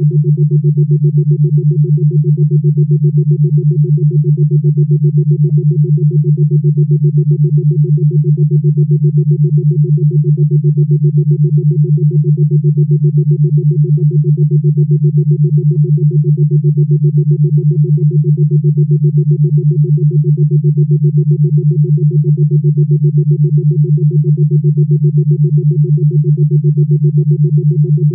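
Steady synthesized low tone with a fainter higher tone above it, pulsing rapidly and evenly without any change in pitch.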